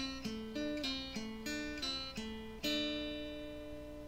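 Background music on acoustic guitar: a run of single plucked notes, about three a second, ending about two-thirds of the way through on a chord that rings on and slowly fades.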